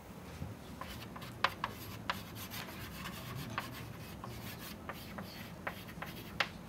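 Chalk writing on a chalkboard: scratchy strokes with sharp taps as the chalk strikes the board, starting about a second in and running until near the end.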